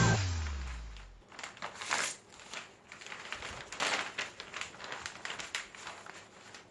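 A large sheet of paper rustling and crinkling in irregular bursts as it is handled and folded into a paper airplane, after background music fades out about a second in.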